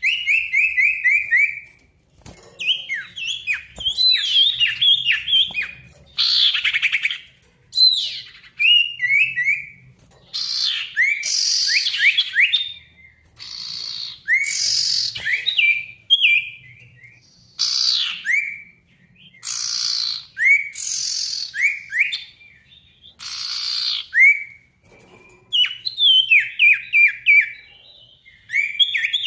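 A male sirtu songbird singing loudly in repeated bursts. Each burst is a rapid string of short, sharply sweeping whistled notes, mixed with harsher chattering phrases, with brief pauses between the bursts.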